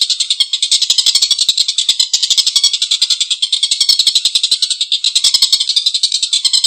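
Tengkek buto kingfisher giving a long, harsh chattering call: a fast, unbroken, high-pitched rattle of many notes a second.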